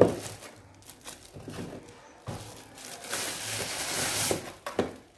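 Bubble wrap crinkling and rustling as it is pulled off a cardboard headphone box, with scattered small crackles and a denser stretch from about three seconds in. A sharp knock at the very start is the loudest sound.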